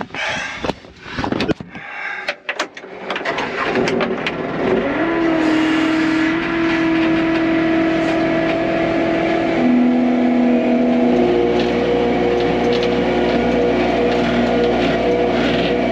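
Side-by-side UTV's engine heard from inside its cab as it drives off. A few clicks and knocks come in the first seconds, then the engine speeds up about five seconds in and runs on with a steady hum whose pitch steps up and down a few times.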